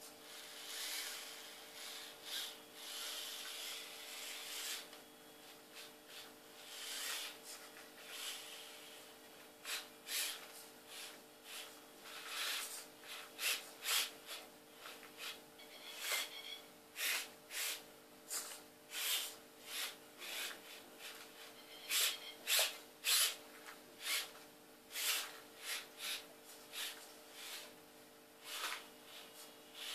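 Losi Micro rock crawler's small electric motor and gears whirring in short, stop-start bursts, its tyres scrabbling and scraping over hard blocks with clicks and knocks as it climbs.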